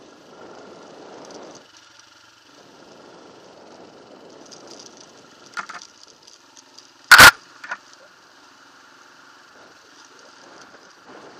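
Off-road motorbike running at low revs over rough ground, the engine faint and uneven. About seven seconds in comes one loud, sharp knock, with smaller knocks just before and after it.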